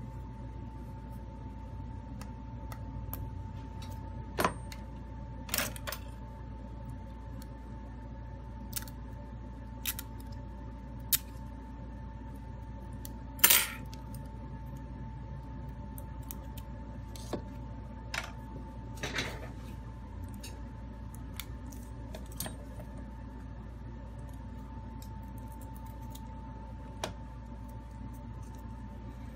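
Scattered small clicks and taps from handling a Huawei Mate 20 replacement LCD screen and its flex cable on a silicone repair mat. The loudest click comes about halfway through, over a steady hum with a faint whine.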